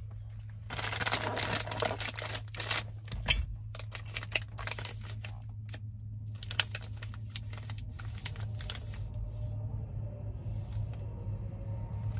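Plastic MRE packaging crinkling and rustling in irregular handfuls as the ration's flameless heater bag and food pouch are handled, dying away after about nine seconds. A steady low hum runs underneath.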